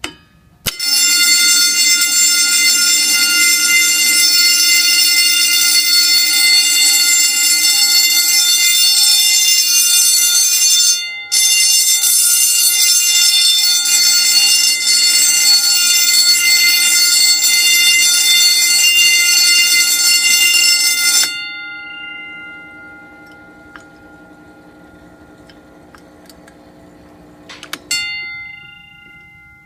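Simplex 120-volt AC vibrating fire alarm bell ringing continuously and loudly, with a brief break about 11 seconds in. It stops about 21 seconds in and the gong rings down slowly. Near the end a short clank sets it ringing briefly once more.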